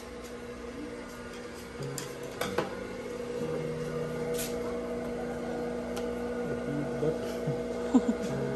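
Steady electric hum of a Juki industrial sewing machine's motor, with a few light clicks as the fabric is handled at the machine.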